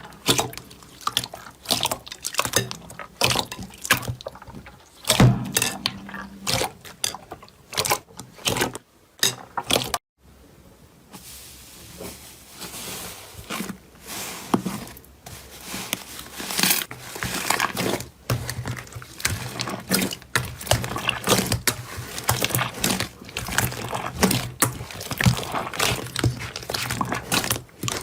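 Slime being squeezed, stretched and poked by hand, making wet sticky clicks, pops and squelches in irregular runs. About ten seconds in the sound breaks off briefly, then softer wet squishing builds back into dense popping.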